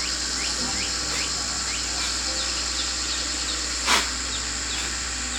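Steady outdoor insect chorus, high-pitched and continuous, with a run of short rising chirps repeating about twice a second. A single sharp knock sounds about four seconds in.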